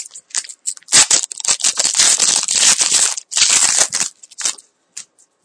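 Foil wrapper of a hockey trading-card pack being torn open and crinkled by hand: dense crackling from about a second in until past four seconds, with a few scattered crinkles before and after.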